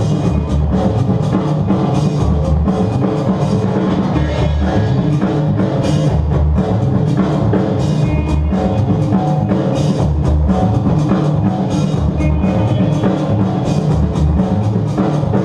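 Loud DJ music with a steady, heavy drum beat and bass, playing over a sound system for the dancers.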